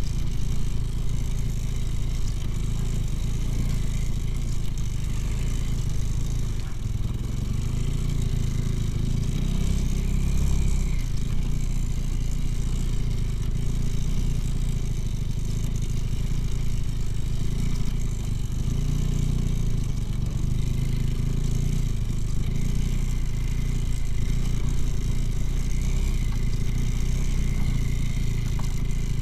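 Engine of a two-wheel-drive off-road motorcycle running steadily as it rides through snow, swelling briefly about ten seconds in.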